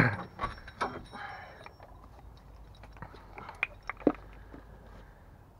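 Scattered clicks and knocks of hand tools and metal parts being handled, the loudest a knock right at the start and a few sharp ticks near the end.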